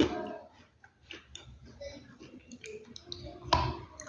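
Crunching of a brittle, earthy material: a sharp crack at the start, small clicks and crackles after it, and a louder crunch about three and a half seconds in.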